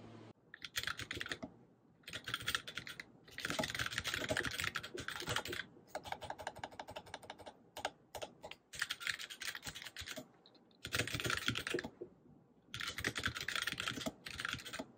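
Fast typing on a low-profile computer keyboard: rapid key clicks in bursts of one to two seconds, with short pauses between.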